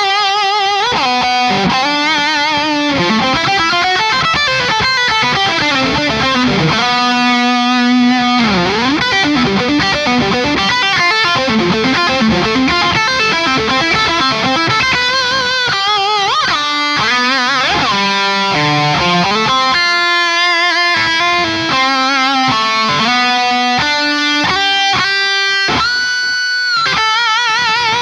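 High-gain distorted electric guitar played through a 2003 Marshall JCM 800 2203 head with the Cameron Ocean mod. The lead lines mix fast runs with held notes that have wide vibrato and bends.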